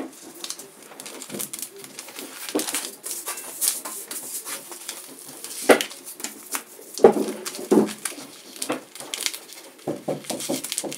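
A large paper stencil sheet being handled and its backing peeled off on a steel bench: irregular crackling and rustling of paper, with a couple of louder snaps about six and seven seconds in.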